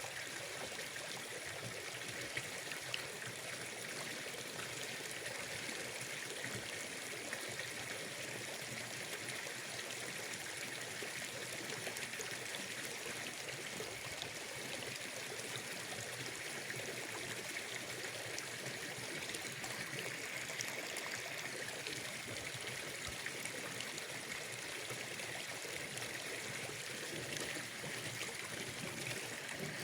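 Steady flowing, trickling water at a pond.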